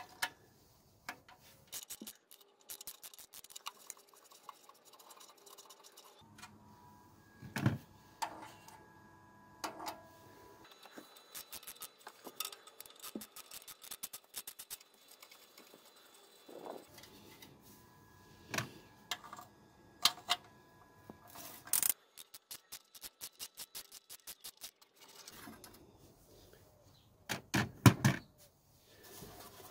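Ratchet wrench with a 10 mm socket clicking in quick runs as it undoes the nuts on an exhaust manifold heat shield, mixed with metal clinks from handling the loosened nuts. A cluster of louder metal knocks comes near the end.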